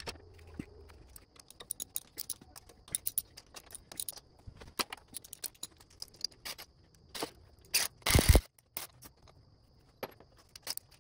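Socket wrench and metal hand tools clicking and clinking at irregular intervals on a small engine's cylinder head as it is being unbolted, with one louder knock a little past eight seconds in.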